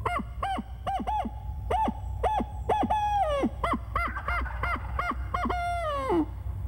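A hand-held owl locator call blown by a turkey hunter: a rapid string of squalling hoots broken by drawn-out notes that slide downward, the last one falling away about six seconds in. It is an owl hoot blown loud to make a distant gobbler answer and give away where he is.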